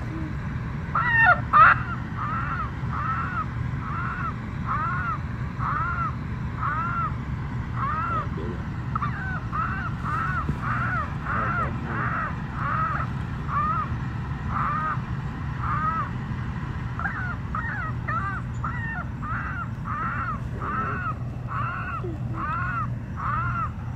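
Chicken distress call played from an electronic predator caller to lure coyotes: a long run of repeated squawks, about two a second with a few short pauses, the loudest burst about a second in. A steady low hum runs underneath.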